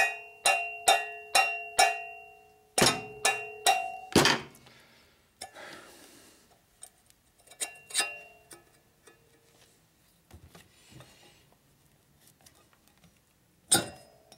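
Rapid taps on a Harley shovelhead rocker box, each ringing briefly. About two a second for the first four seconds, then fainter knocks and handling, and one more sharp tap near the end. The box was pushed onto the wrong cylinder head and is being knocked loose to come off.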